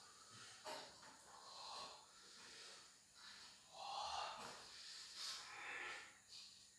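Faint, irregular breathing sounds from a person, coming in breathy gusts, the strongest about four seconds in and again near five to six seconds.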